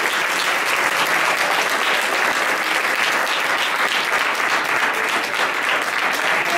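Audience applauding steadily, a dense patter of many hands clapping at an even level.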